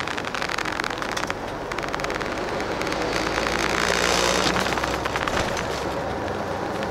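Coach bus in motion, heard from inside the cabin: engine and tyre-road noise with a low steady hum, swelling to its loudest about halfway through and easing off again. A scatter of small clicks and rattles runs through it.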